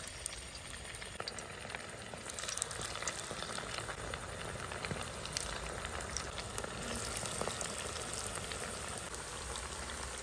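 Marinated, flour-coated chicken pieces frying in hot oil: a steady sizzle with many small crackles and pops.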